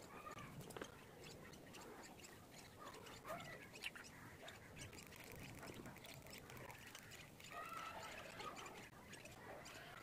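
Young parrot chicks giving faint, short begging calls again and again while being hand-fed from a spoon, with small ticks mixed in.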